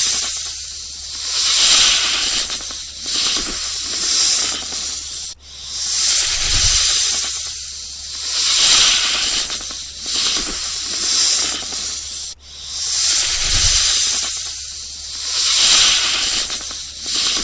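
Snake hissing: a series of long, loud hisses, each swelling and fading, in a recording that repeats about every seven seconds.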